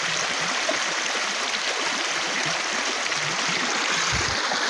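Muddy floodwater overflowing from a reservoir, rushing steadily over rocks and grass in a shallow channel.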